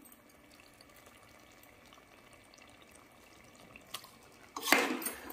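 Chicken and onion masala frying gently in separated oil in a pressure-cooker pot, a faint steady sizzle; the oil has left the masala, the sign that the masala is cooked through. Near the end a sudden loud clatter and scrape of metal in the pot.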